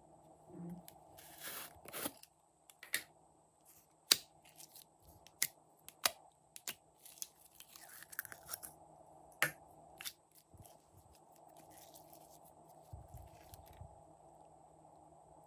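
Glossy slime and a plastic container handled by hand: scattered sharp clicks, pops and crackles, with a rustling scrape about a second and a half in, over a faint steady hum.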